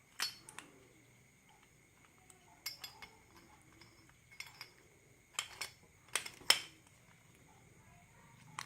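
Metal parts of a Yale lever lockset clicking and clinking as they are handled and fitted together by hand: scattered sharp clicks, several in quick pairs, the loudest about six and a half seconds in.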